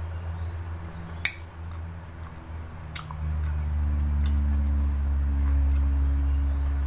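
Sharp clicks of chewing and mouth sounds while eating, over a low steady hum that grows louder about three seconds in.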